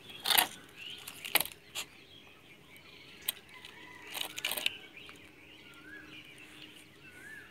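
Dog gnawing on a dry, weathered wooden stick: a few short bursts of chewing and scraping, the loudest near the start and a cluster about four seconds in. Birds chirp faintly in the background.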